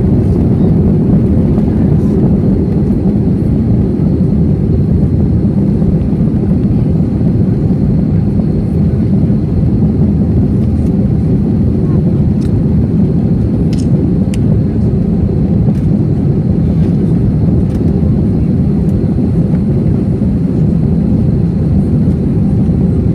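Steady cabin noise of an Airbus A321 climbing after takeoff: the engines and rushing air are heard from a window seat as a constant low roar, with a faint high whine above it.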